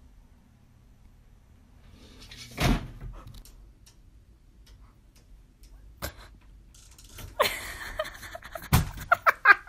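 Scattered knocks and thumps from objects being bumped: one loud thump about three seconds in, a sharp knock halfway through, and another thump near the end, followed by a quick run of short, loud sounds.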